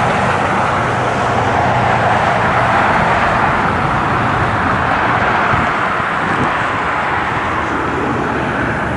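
Airliner jet engines running, a steady, loud rushing noise.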